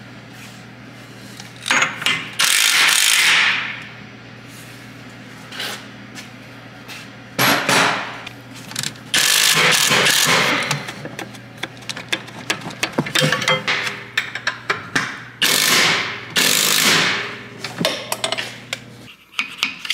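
Maximum cordless impact wrench hammering in about four bursts of one to two seconds each, running nuts onto the rear suspension arm bolts. Light clicks and knocks come between the bursts.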